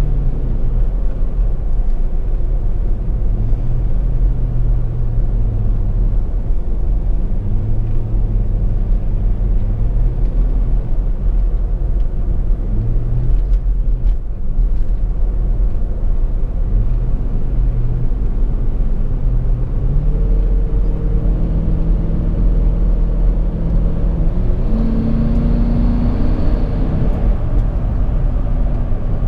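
Steady engine and road noise inside a moving car's cabin, the engine note shifting in pitch several times as the car changes speed.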